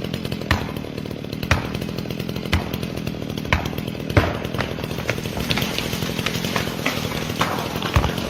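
Chainsaw running steadily, with sharp knocks recurring about once a second.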